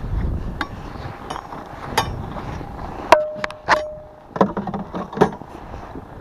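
Metal ice-fishing gear, red wire rod holders, being handled and knocked against a loaded boat: a run of knocks and clanks, the two loudest about three seconds in, each ringing briefly with a steady metallic tone, then a few more knocks.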